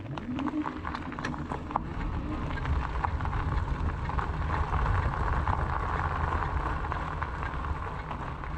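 Rawbike electric bike being ridden: a steady rumble of wind and tyre noise, with clicks and rattles in the first two seconds.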